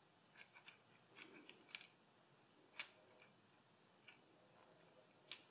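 Faint, scattered light clicks of a small steel fuel-injector hold-down clip being handled and set into place by hand on the intake manifold, a handful of short ticks, most of them in the first three seconds.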